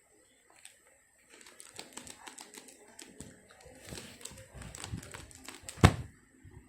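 Irregular knocking and clattering, with one loud thump about six seconds in.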